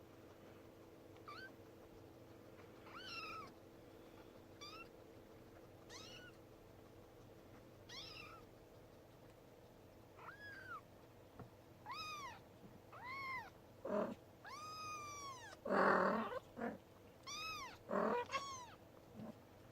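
A young kitten meowing over and over in short, high-pitched calls. They come sparse at first, then louder and more often in the second half, some of them rougher.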